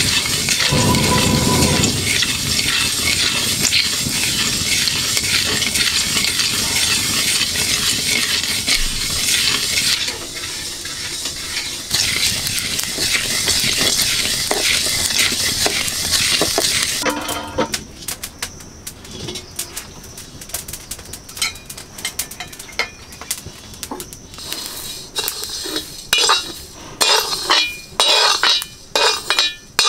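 Coriander seeds, black peppercorns and other whole spices dry-roasting in an iron wok, a steady rustling hiss as a wooden spatula stirs them. About seventeen seconds in it thins to scattered ticks, and near the end a metal ladle scrapes the wok in several sharp strokes as the seeds are scooped out.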